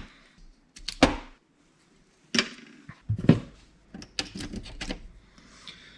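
Scattered sharp clicks and knocks of hard plastic and metal parts being handled and pried at while a receipt printer is taken apart.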